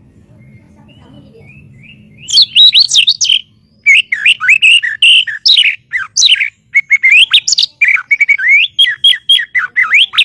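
White-rumped shama singing: after about two seconds of a faint low hum, a loud run of fast, varied whistled phrases begins, breaks off briefly, then carries on in a rapid string of rising and falling notes.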